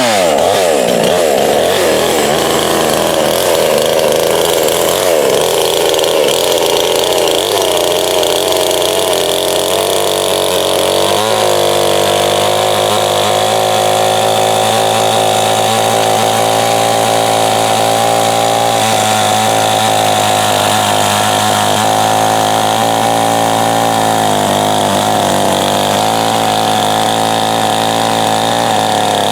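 Coocheer 58cc two-stroke chainsaw running at high revs, cutting wood. The engine speed wavers for the first ten seconds or so, then holds steady at full throttle through a long straight cut.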